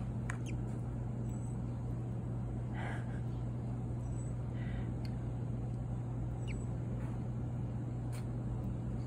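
A steady low machine hum, with a few faint, brief soft sounds over it.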